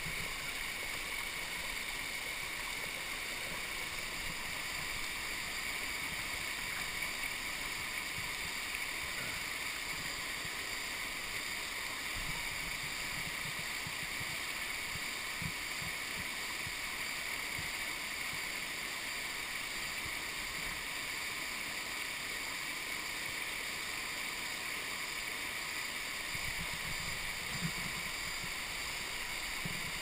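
Shallow whitewater rushing steadily down a smooth natural rock slide, a continuous even rush of water over rock.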